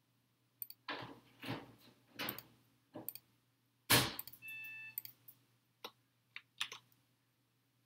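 Computer mouse clicks and desk handling at a workstation: a series of irregular clicks and scuffs, the loudest about four seconds in. A brief high tone sounds just after it, and a faint steady hum runs underneath.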